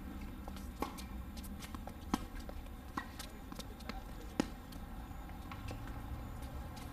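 Tennis ball being struck by rackets and bouncing on a hard court during a doubles rally: four sharp pops at uneven spacing over the first two thirds, the loudest about two thirds through.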